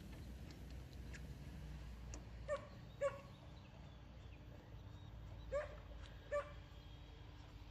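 A dog barking some way off: four short barks in two pairs, a couple of seconds apart.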